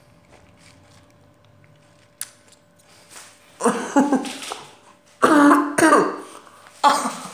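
A teenage boy coughing hard in three bouts, with his mouth stuffed with salted sunflower seeds, after a single sharp click.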